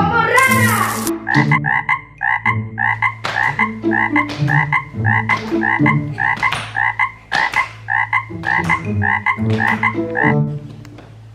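Frog croaking, repeated evenly at about two to three croaks a second, over background music, with a brief hiss just before the croaks begin. The croaks stop about a second before the end.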